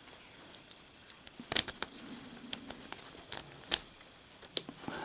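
Small metal lock being raked with a wave-rake pick under a tension wrench: irregular metallic clicks and scrapes as the pick works the pins, coming thicker from about one and a half seconds in.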